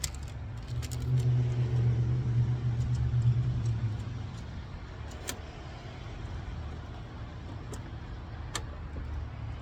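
A power drill running for about three seconds, boring a hole to fit a zip tie, over a steady low hum; a couple of sharp clicks follow.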